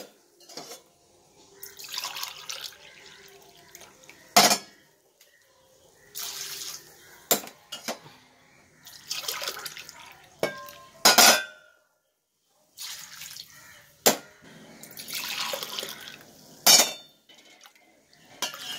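Chicken stock poured from a steel pot into a steel tumbler in several splashing pours, with sharp clinks of steel vessels between them, as the stock is measured out glass by glass.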